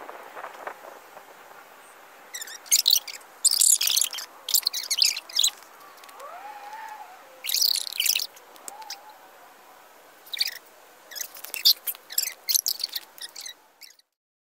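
Voices and movement sped up in a time-lapse, heard as irregular clusters of short, high-pitched chirping bursts over a faint steady hiss. The sound cuts off just before the end.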